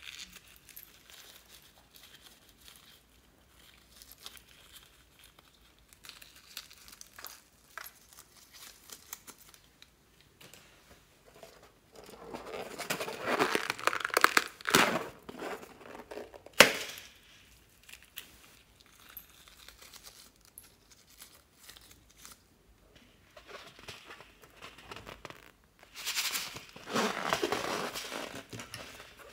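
Latex balloons being squeezed and rubbed in the hands, giving rubbery crinkling stretches around the middle and again near the end. There is one sharp click just after the middle.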